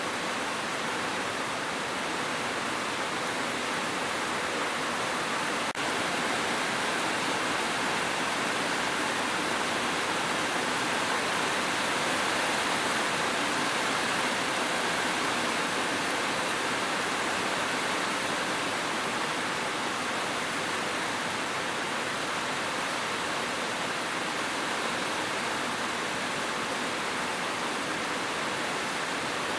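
Steady, dense rain: an even hiss of falling water with no gaps, briefly dipping with a faint click about six seconds in.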